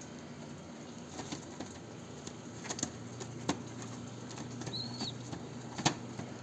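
Pigeons in trap cages: a few sharp wing-flap clicks, the loudest near the end, and one short high arched peep about five seconds in, the call of a young squeaker pigeon, over a low steady hum.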